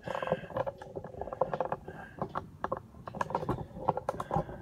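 Steel welding cart being moved and turned around by hand, with irregular clattering and knocking throughout.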